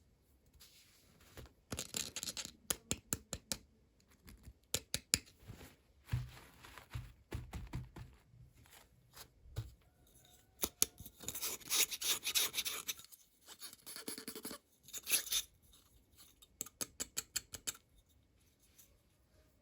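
Hands opening miniature toy packaging: irregular runs of sharp clicks and scratchy tearing and rustling, with a longer scratchy stretch about halfway through.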